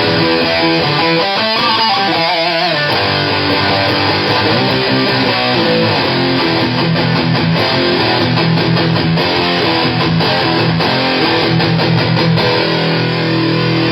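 Electric guitar played through fuzz pedals and an amplifier, fuzz-distorted riffing with sustained chords. About two seconds in, a held note wavers with a bend or vibrato.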